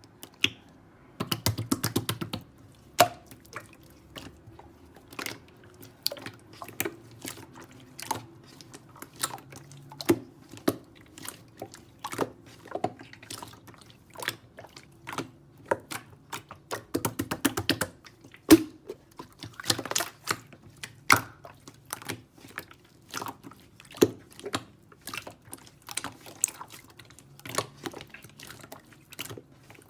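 An irregular series of sharp clicks and taps, with two quick rattling flurries, one near the start and one about halfway through.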